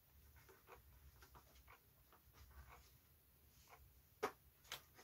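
Near silence with faint light taps and scratches of small balsa model parts being handled, and two sharper clicks near the end, over a low steady hum.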